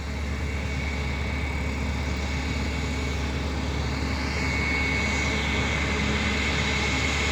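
Embraer E195-E2's Pratt & Whitney PW1900G geared turbofan engines idling, a steady jet hum with a high whine that grows stronger about four and a half seconds in.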